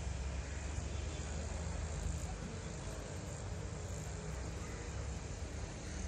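Nilgiri Mountain Railway X class steam rack locomotive moving away into the distance: a steady low rumble without distinct exhaust beats.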